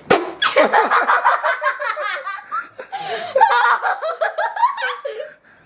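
Laughter in quick repeated bursts, with a short break about three seconds in, stopping just before the end.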